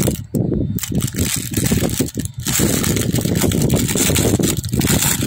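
Clear plastic parts bag crinkling and rustling as it is handled, with irregular crackles over a steady low rumble.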